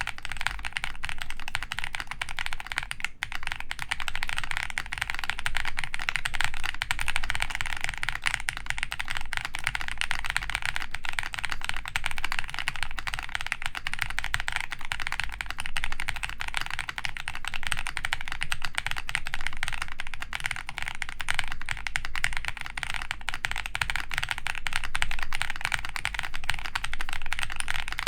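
Continuous typing on a G-Square Studio Vintage 60S mechanical keyboard with Vertex V-One switches, a polycarbonate plate and DCS keycaps: a dense, steady stream of keystrokes.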